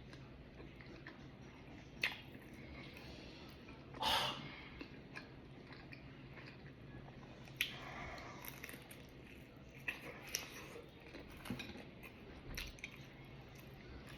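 Close-up mouth sounds of a person chewing and biting pizza, with scattered wet clicks and smacks. One louder burst comes about four seconds in.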